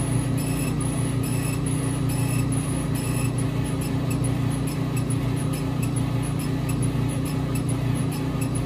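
An Epilog Fusion M2 laser engraver runs with a steady hum. Light ticks repeat two to four times a second as its laser head sweeps back and forth over the wooden sign.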